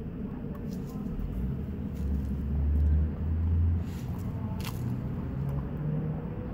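A low outdoor rumble that swells for about two seconds in the middle, with a few faint scratches and clicks of a chihuahua's paws digging in a planter's soil.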